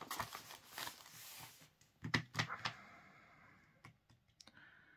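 Paper rustling as a hand slides over and smooths a printed sheet, with a few sharper crinkles about two seconds in and scattered light ticks that die away.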